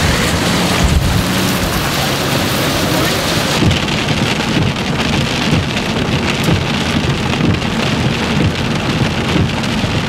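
Heavy thunderstorm rain pelting a vehicle: a loud, dense, steady hiss with a low rumble under it. The hiss turns duller about three and a half seconds in.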